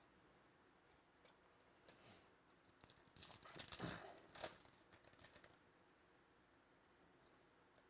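Foil trading-card pack wrapper being torn open and crinkled by hand: a burst of tearing and crinkling starting about three seconds in and lasting two to three seconds.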